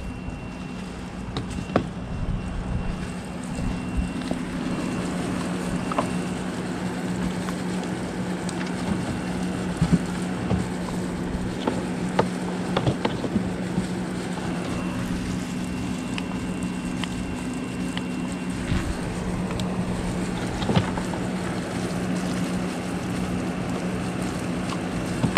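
Scattered clicks and knocks of hands working the plugs, an extension cord and a remote on/off switch of a shop vacuum that stays off because its own power switch is not turned on. Under them, a steady low hum and a wind-like rumble.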